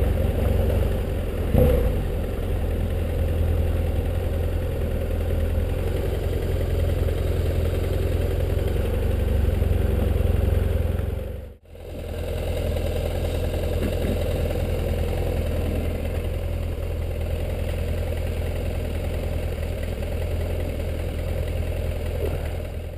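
Vehicle engine running steadily while riding slowly, with low rumble on the camera microphone. There is a single thump about two seconds in, and the sound cuts out for a moment about halfway through.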